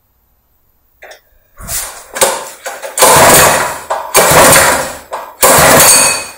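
Brand-new Honda GX-style clone single-cylinder engine being pull-started on its recoil starter for the first time. After a couple of weak coughs, it fires in three loud bursts of about a second each, each one fading as the engine dies back before it keeps running.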